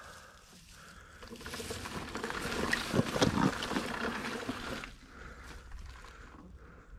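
Water sloshing and splashing in a muddy trail puddle. It builds over a couple of seconds, with a few sharp knocks around the middle, then eases off.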